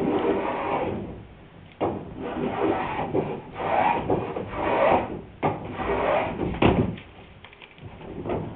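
Small block plane shaving a wooden boat rail in about six strokes of roughly a second each, each a scrape of the blade through the wood, quieter near the end. The rail's edge is being planed to the angle of the hull.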